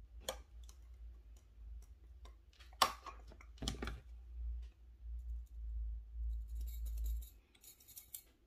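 Handling noises while makeup is applied with a beauty sponge: scattered small clicks with a sharp one about three seconds in, over a low rumble, then a soft scratchy rustle near the end as the sponge is dabbed on the face.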